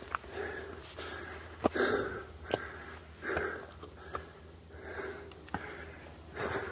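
A hiker breathing heavily close to the microphone while climbing a steep stony path, one breath swell about every second and a half, with sharp clicks of footsteps on loose stones and rock steps.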